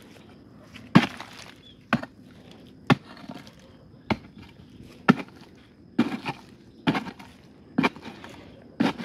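A digging tool chopping into the hard earth of a termite mound, with about nine strikes at roughly one a second.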